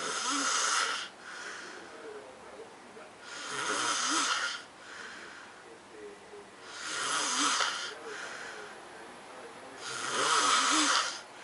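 A sleeping man snoring: four rough, hissy snores at an even pace, about three seconds apart.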